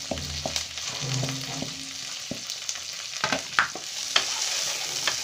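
Chopped vegetables sizzling steadily in hot ghee in a kadai. From about three seconds in, a spatula stirs them, scraping and knocking against the pan in a few sharp clicks.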